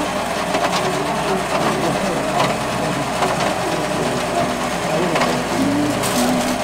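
Steady mechanical clatter of a charcoal corn grill's motor-driven rotating skewers, with a faint tick about once a second, over background voices.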